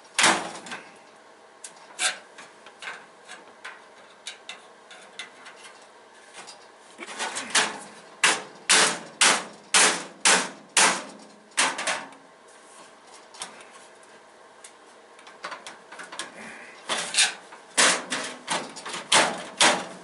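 Sharp metal knocks and clanks from a steel tool box drawer being forced loose from its slides. There is one loud knock at the start, a run of about a dozen knocks around two a second in the middle, and another run near the end.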